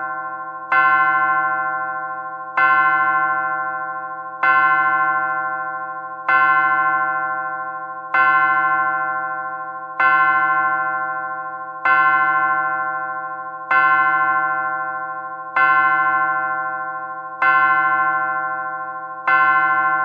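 Longcase clock striking the hour: the same bell note struck eleven times, about once every two seconds, each stroke ringing on and fading until the next. A faint low double knock comes with each stroke.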